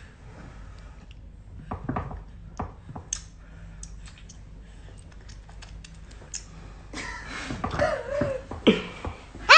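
Low room noise with scattered light clicks and rustles, then short non-word vocal sounds from a person's voice near the end.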